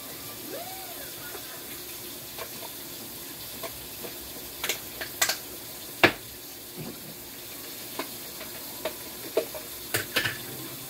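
Kitchenware clinking and knocking several times, the loudest knock about six seconds in, over a steady hiss.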